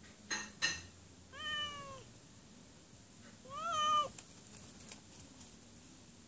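Cat meowing: two very short calls in quick succession, then two longer meows about two seconds apart, the first falling in pitch and the second rising and then holding.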